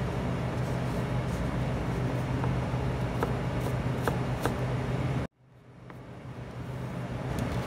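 Steady, low machine hum, like a kitchen ventilation fan or air conditioner, with a few faint taps of a knife on a plastic cutting board as carrots are cut. About five seconds in, the sound cuts out abruptly and then slowly fades back up.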